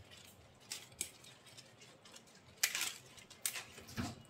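Tender amaranth stems and leaves being snapped off by hand and rustling: a handful of faint, crisp snaps at irregular intervals.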